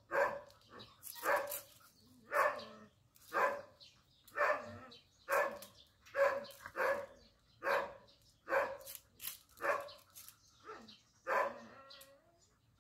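A dog barking over and over in a steady rhythm, about one to two barks a second, stopping shortly before the end.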